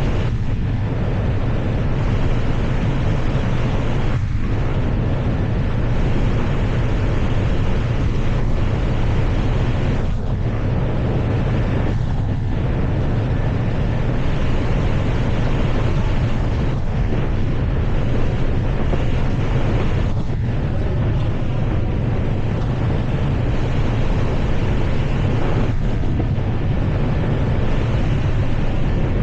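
Steady rushing noise of an airliner on the flight deck in flight, airflow and engine noise blended into one low, even roar.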